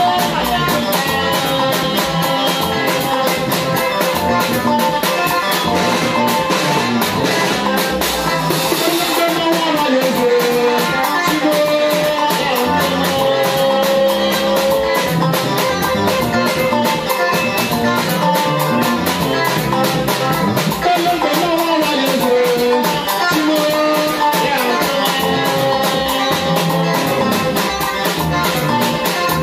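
Live band playing: electric guitar lines over bass guitar, with a drum kit keeping a steady, fast beat.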